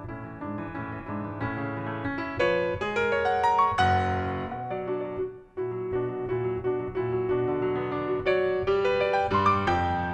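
Grand piano played solo: a busy passage of many quick notes and chords, with a heavier chord about four seconds in and a brief break about halfway through before the playing carries on.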